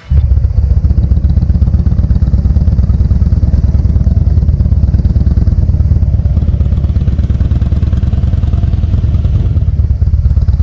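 Harley-Davidson motorcycle's V-twin engine running steadily under way, a loud, low, even drone that starts suddenly.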